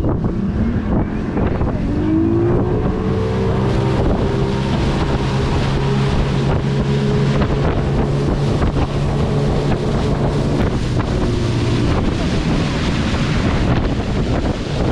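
Tour motorboat's engine speeding up, its pitch rising over the first few seconds, then running steadily at speed. Wind buffets the microphone throughout.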